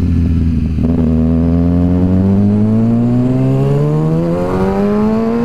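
2013 Kawasaki ZX-6R 636's inline-four engine, through a full M4 aftermarket exhaust, accelerating hard. About a second in, its note starts to rise steadily in pitch in one long pull through a single gear.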